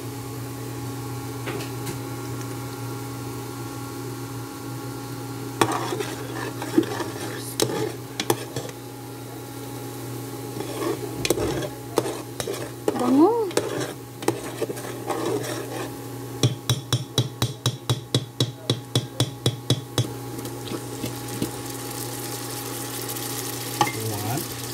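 A spoon stirring and scraping simmering tomato sauce in a pot on an induction cooker, with scattered knocks and a run of quick, even taps against the pot, about five a second, a little past the middle. The induction cooker hums steadily underneath.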